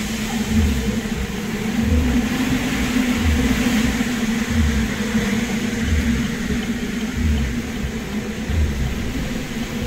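Hurricane-force wind and rain roaring: a steady rushing hiss over the steady hum of a vehicle, with a low thump about once a second.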